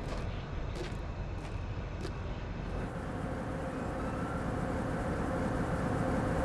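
Footsteps on a hard floor at an even walking pace, about three steps every two seconds, over a steady low rumble. About three seconds in the steps stop, and the low rumble grows gradually louder, with a few faint steady tones in it.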